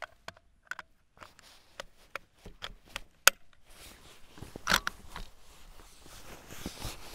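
Scattered clicks and knocks of a Lee-Enfield No. 4 (T) bolt-action rifle being handled and readied to shoot, with one sharp click about three seconds in and a louder rattle a moment later.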